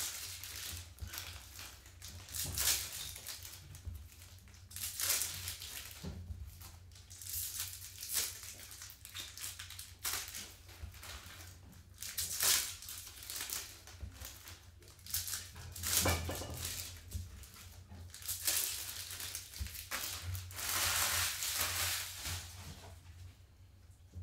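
Trading card pack wrappers being torn open and crinkled by hand, in repeated crackling bursts every second or two, over a low steady hum.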